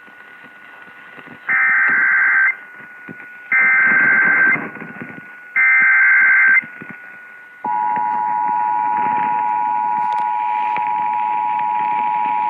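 Emergency Alert System activation received over the radio: three one-second bursts of SAME header data, about two seconds apart, then a second or so later the steady two-tone attention signal begins and holds. The tones open the relay of a severe thunderstorm warning, with radio hiss underneath.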